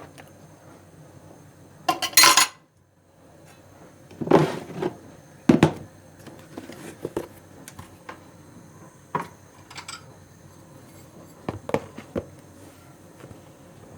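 Dishes and cutlery clinking and clattering as they are handled, a series of separate knocks with a brief rush of noise about two seconds in.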